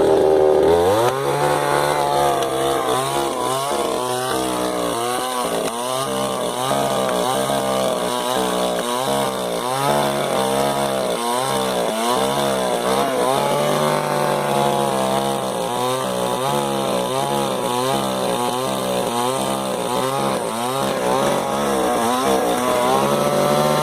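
Two-stroke chainsaw revving up about a second in, then cutting into apple wood, its engine note dipping and recovering over and over as the chain bites under load.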